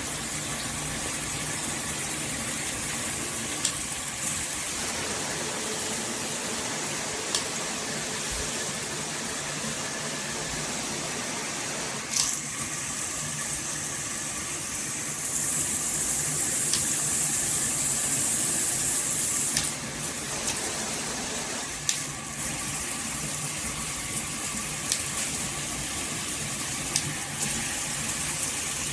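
Water spraying from a handheld shower head, a steady rush that turns louder and hissier for a few seconds about halfway through, with a few sharp clicks.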